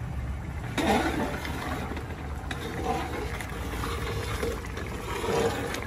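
Outdoor propane burner running under a large covered pot of simmering liquid: a steady low rumble with a hiss above it.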